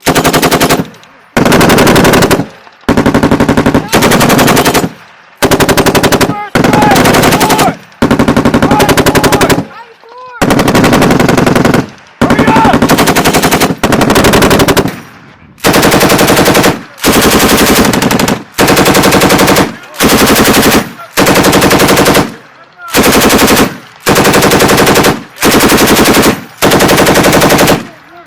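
A belt-fed machine gun firing a long string of short bursts, about twenty of them, each roughly a second long and separated by brief pauses.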